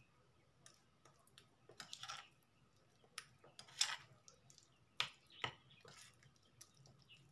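Spoon stirring shrimp through a thick flour-and-egg batter in a ceramic bowl: faint irregular clicks and scrapes of the spoon on the bowl, with a few louder knocks about two, four and five seconds in.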